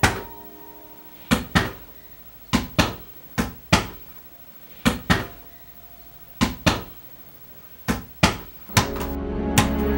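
A ball bounced repeatedly on a hard floor in a small room, each bounce a pair of sharp knocks about a quarter second apart, every second and a half or so. Music rises in near the end.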